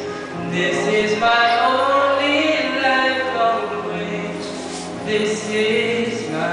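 A man singing solo into a microphone, amplified through a PA speaker, with long held notes that glide up and down over a steady instrumental accompaniment.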